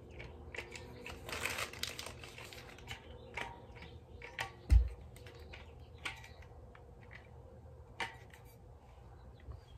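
Items and plastic packaging being handled while unpacking: a crinkling rustle about a second in, scattered light clicks and knocks, and one sharp thump of something set down hard about five seconds in.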